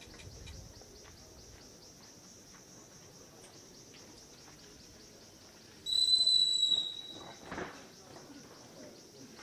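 Insects chirping steadily in a high, rapidly pulsing drone. Just past the middle a loud, high whistle-like tone sounds once for about a second, followed shortly by a brief dull knock.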